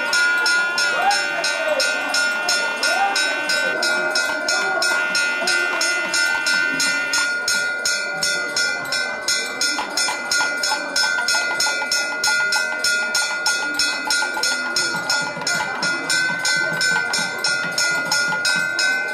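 Temple bell rung rapidly and evenly, about four strikes a second, its ringing tone held steady beneath the strikes, with crowd voices faintly underneath.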